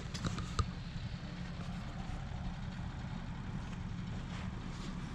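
Propane melting furnace burner running with a steady low rumble. A couple of light clicks come about half a second in.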